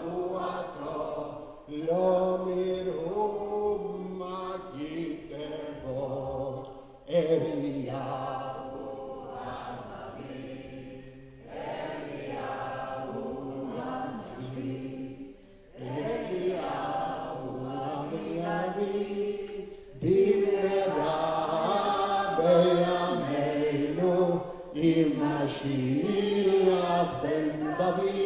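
Several voices singing a traditional Havdalah song together without accompaniment, in phrases with short breaks between them, fuller and louder in the last third.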